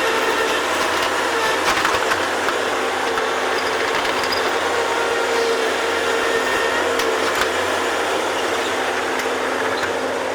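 Bobcat digging machine's engine running steadily under load with a constant hum, while it digs out a spring, with a few short knocks.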